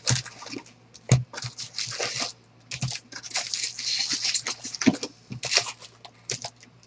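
Foil trading-card packs crinkling and rustling as they are pulled by hand from a cardboard box and stacked, with a few sharp knocks of packs against box and table, the loudest about a second in.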